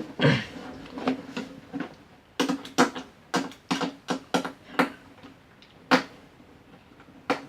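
Irregular clicks and light knocks from handling the recorder's casing and parts during disassembly, a string of them in the middle, then a pause before one more click near the end.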